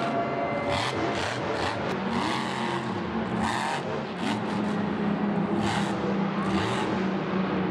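Monster truck's supercharged V8 revving up and down, then holding a steady high rev through the second half, with repeated short bursts of noise over it.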